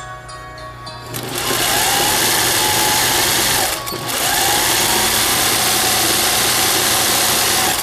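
Singer 20U industrial zigzag sewing machine running at speed, stitching a twin-needle double line through fabric, in two runs with a brief stop about four seconds in. A rising whine as the motor picks up marks the start of each run, and the machine stops at the very end.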